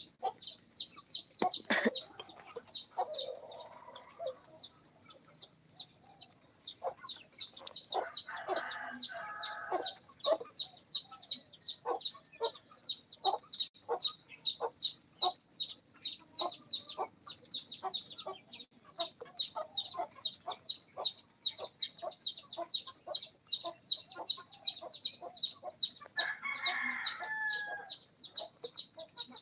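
Chickens: short high peeping calls, each dropping slightly in pitch, repeating about three times a second, with lower clucking calls about eight seconds in and again near the end.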